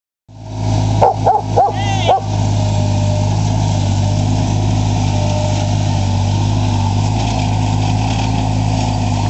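Skid-steer loader engine running steadily, with a black Labrador barking four short times about a second in.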